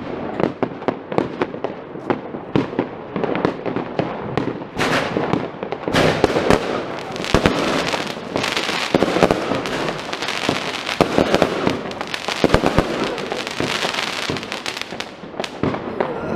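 Continuous barrage of New Year's fireworks and firecrackers: many overlapping bangs and crackling, growing denser and louder about six seconds in.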